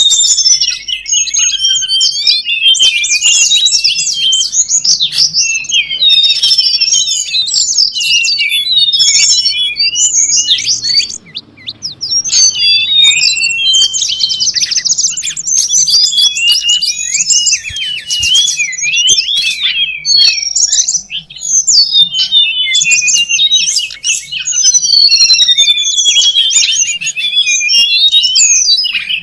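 Lure recording of wild tledekan gunung song: a dense, excited chatter of fast high chirps and trills with almost no let-up, briefly dropping out about 11 seconds in.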